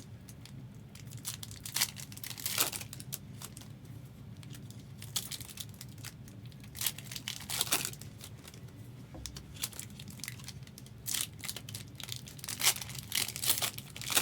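Trading card pack wrappers being torn open and crinkled by hand, in irregular short rasps over a steady low hum.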